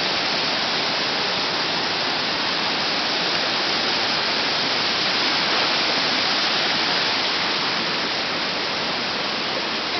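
River water rushing over rocks in small cascades: a steady, even white-water noise.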